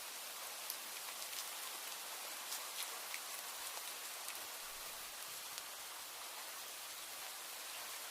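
Steady rain falling, an even hiss with scattered sharp drip ticks, more of them in the first few seconds.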